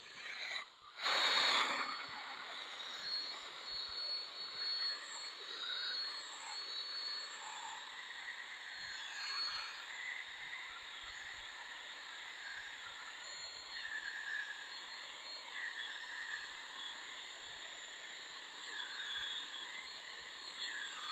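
Powered polishing pad running on a plastic headlight lens with heavy-duty compound, a steady whir with a wavering squeal from the pad rubbing the lens. A brief louder rush about a second in.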